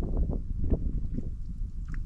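Canoe paddling on calm water: irregular small paddle splashes and light knocks, over wind rumbling on the microphone.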